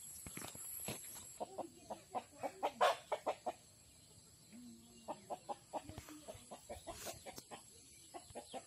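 Chicken clucking in two quick runs of short notes, about five a second.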